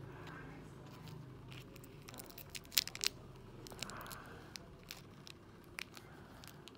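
Small plastic wrapper crinkling and tearing as it is opened, with scattered light clicks of tiny plastic toy pieces and tweezers. The loudest is a quick cluster of sharp crinkles about three seconds in.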